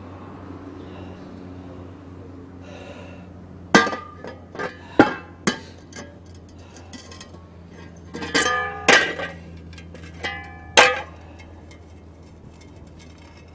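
Metal shovels clanking against asphalt: several sharp strikes, each ringing briefly, in two clusters, over a low steady hum.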